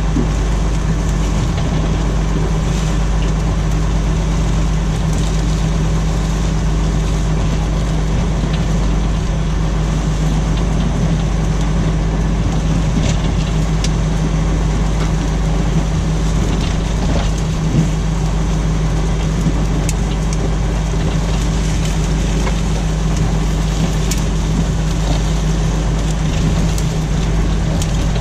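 Tractor engine running steadily under load while pulling a plough, a constant low drone, with one brief knock about two-thirds of the way through.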